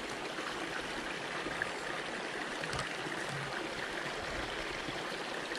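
Small rocky stream running, a steady rush of water.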